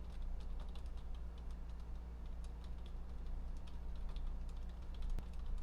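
Computer keyboard typing: quick, irregular key clicks over a steady low electrical hum.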